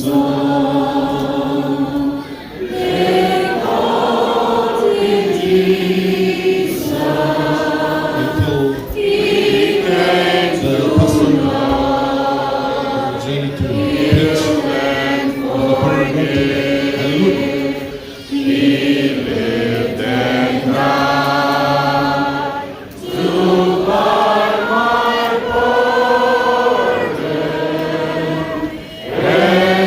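A congregation singing a hymn together in slow, sustained phrases, with short pauses for breath between the lines.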